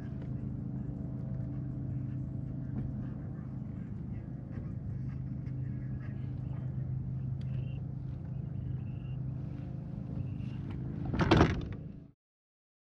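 A steady motor hum made of several even tones, with scattered small clicks over it. About eleven seconds in comes a loud, brief rush of noise, then the sound cuts off abruptly.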